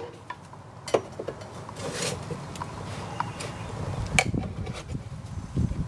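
Plastic door-panel clips being pried at with a flathead screwdriver and putty knife: scattered sharp clicks and scrapes over a low rumbling handling noise, the sharpest click about four seconds in.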